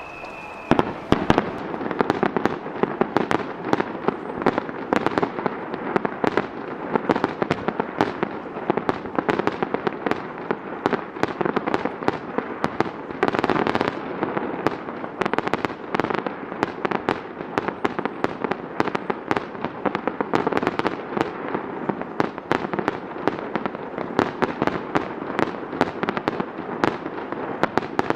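Aerial fireworks shells launching and bursting in quick, overlapping succession: a dense run of sharp bangs and crackling with no let-up. A short falling whistle is heard in the first second.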